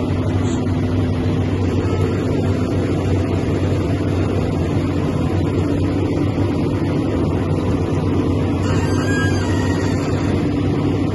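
An engine running steadily at constant speed: an even, low drone with a steady hum.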